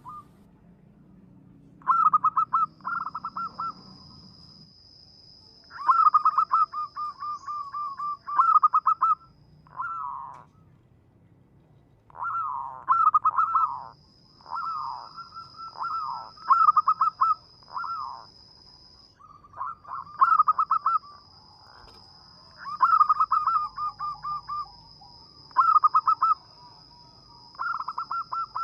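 Zebra dove (perkutut) cooing in repeated phrases of rapid, pulsed notes, about a dozen phrases with short pauses between them. A thin, steady high-pitched tone runs behind most of it.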